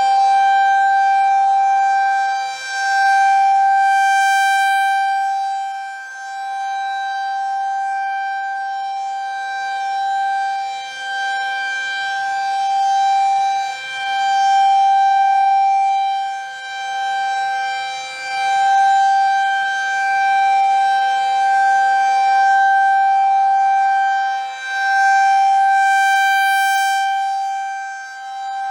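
Federal Signal 2001 rotating tornado siren sounding a steady tone, very loud. The pitch holds level while the loudness swells and fades about every three to four seconds as the siren head rotates.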